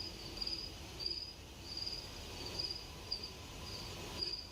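Crickets chirping at a steady pace, about two high chirps a second.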